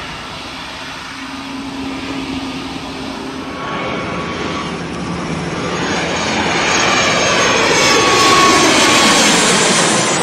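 Jet airliner passing close by, its engine noise growing louder over several seconds to a peak near the end, with sweeping tones that slide in pitch as it goes past.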